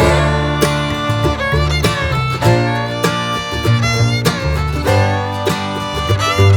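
Upbeat instrumental background music in a bluegrass or country style, with fiddle and guitar.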